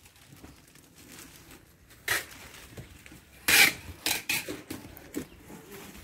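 Handling noise from a plastic-wrapped bird cage: a few short rustles and rubs of plastic and cage parts, the loudest about three and a half seconds in.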